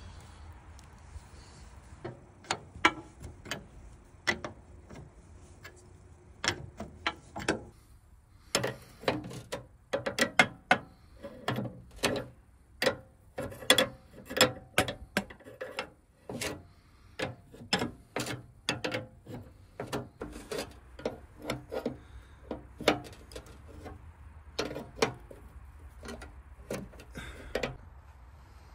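A wrench clicking and clinking against steel hydraulic hose fittings as new hoses are threaded on and tightened. The clicks are sharp and irregular, coming in quick runs.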